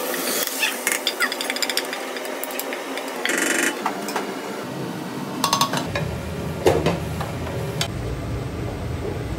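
Cookware clattering with sharp knocks of metal and a wooden spatula as food is tipped from a pot into a frying pan and stirred, with a brief hiss about three and a half seconds in.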